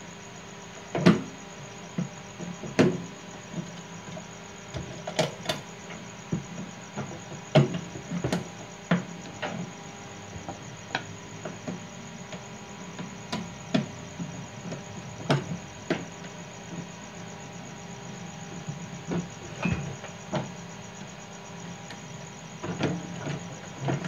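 Irregular clicks, taps and knocks of metal parts and a screwdriver being handled inside a microwave oven's chassis while a new magnetron is fitted. A steady hum runs underneath.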